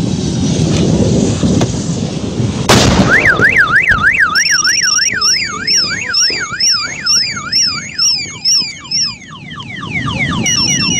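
A loud blast from a propane cylinder bursting in the burning wreck, about a quarter of the way in, over wind and traffic rumble. A car alarm, set off by the blast, starts right after it and cycles through its tones: a fast up-and-down warble, then a higher chirping pattern, then a run of falling sweeps near the end.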